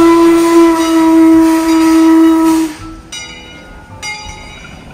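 Narrow-gauge steam locomotive's whistle blowing one long, steady, single-note blast that cuts off about two and a half seconds in. After that, two metallic ringing strikes sound as the train rolls in.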